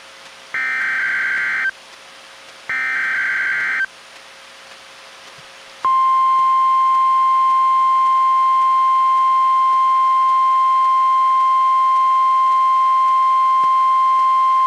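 NOAA Weather Radio SAME digital header: the last two of its three data bursts, each about a second of rapidly warbling tones, encoding a Required Monthly Test. After a two-second pause, the steady 1050 Hz NWR warning alarm tone comes on about six seconds in and holds.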